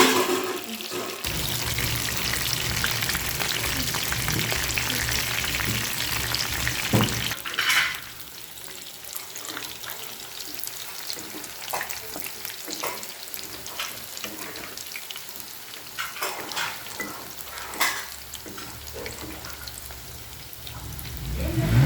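Meal maker (soya chunks) frying in hot oil in a pan, sizzling while a spatula stirs and scrapes through them. The sizzle is loud with a low hum under it for the first eight seconds or so, then drops to a quieter hiss broken by scattered knocks of the spatula against the pan.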